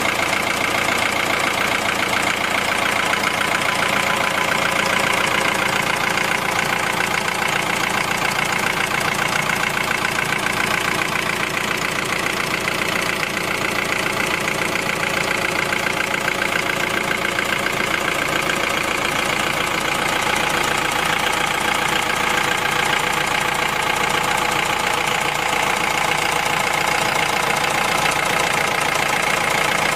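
An engine idling steadily, with no change in pitch or speed.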